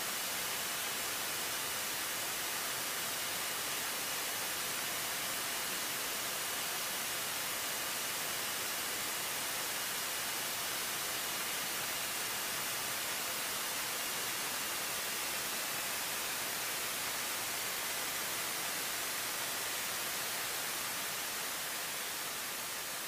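Steady hiss of a light aircraft's intercom or headset audio feed, with no engine roar. A faint high thin whine in the hiss holds steady, then slides down in pitch about two-thirds of the way through. The hiss fades slightly near the end.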